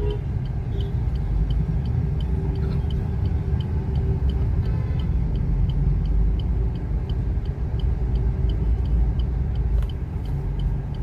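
Low rumble of road and engine noise inside the cabin of a Maruti Ignis moving slowly through city traffic. A regular light ticking, about three times a second, runs through it.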